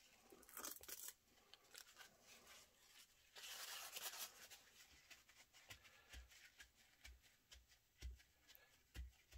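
Faint paper handling: masking tape crinkling in the first second, then a paper towel rustled and folded near the middle. Soft low taps follow as the towel is dabbed on the model to blot off excess glue.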